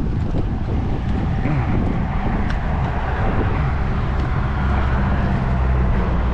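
A motor vehicle's engine running steadily as a low hum, which grows stronger from about two seconds in.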